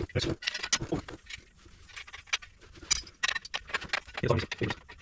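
Irregular metallic clinks and taps of hand tools and exhaust hardware being handled while fitting the pipes, with a couple of duller knocks near the end.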